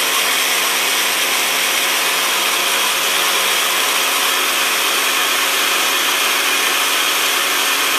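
Black & Decker countertop blender running steadily, with a constant motor hum under its whir, as it purées hot cooked saag greens and cream into a green paste.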